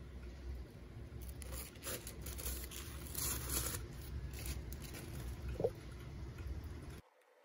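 Protective paper sheet being peeled off a new MacBook Air's screen and pulled away, giving a few soft rustles and crackles over a low room hum.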